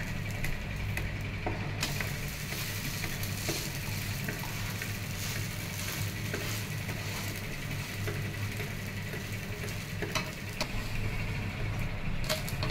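Millet dosa sizzling on a hot pan, with a metal spatula scraping and clicking against the pan as it loosens and lifts the dosa. A steady low hum runs underneath.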